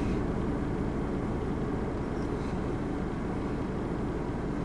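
Steady low rumble of a vehicle engine running, even and unchanging.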